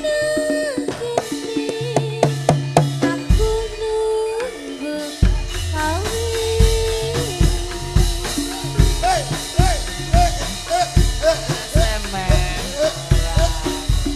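Live tayub music: drums keep a steady beat under a woman singing a wavering Javanese melody into a microphone.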